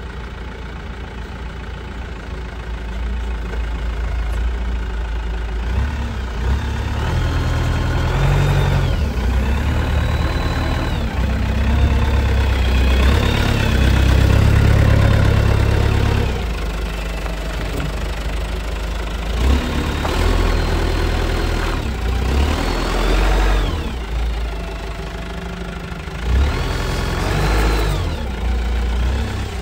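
Kalmar DC 4-500 diesel forklift engine running: it idles, then revs up several times, with a whine that rises and falls in pitch with each rev.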